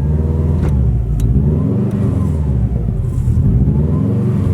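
Subaru WRX's turbocharged flat-four boxer engine being revved repeatedly while parked, the revs rising and falling every second or so, with two sharp pops in the first second and a half. The engine is running unevenly and keeps wanting to stall.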